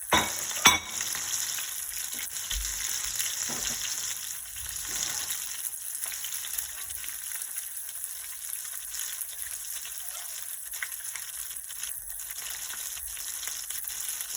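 Whole red snapper frying in hot oil in a pot: a steady sizzle throughout. Two sharp knocks come about half a second apart right at the start.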